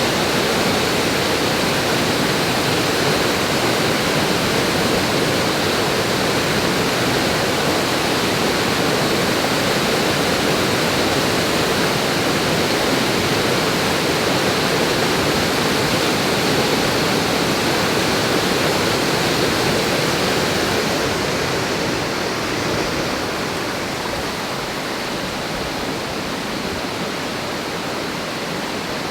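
A stream swollen by heavy rain, rushing steadily in flood. The rush eases slightly after about twenty seconds.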